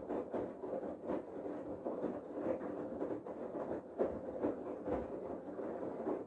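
Bosch Serie 8 front-loading washing machine in its main wash, the drum turning with the laundry and water sloshing and flopping in irregular soft thuds over a low motor hum.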